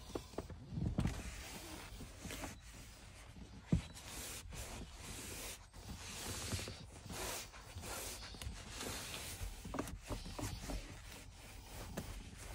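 Microfibre towel wiping over a car's plastic interior door trim and handle, drying it after cleaning, in repeated swishes with a few knocks.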